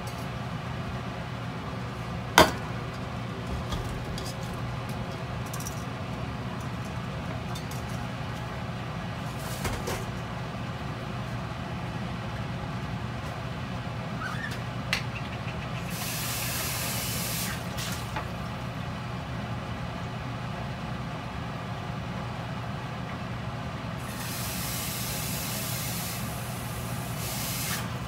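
Kitchen background with a steady low hum, a single sharp knock a couple of seconds in, and two short stretches of hissing, one midway and one near the end.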